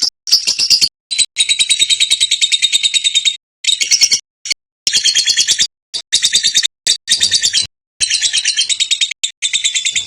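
Lovebird chattering in long, rapid trills: fast runs of high chirps, each run lasting a second or two, broken off by several abrupt short silences.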